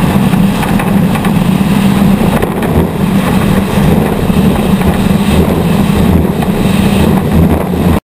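Off-road race truck engine running loud and steady, cutting off suddenly near the end.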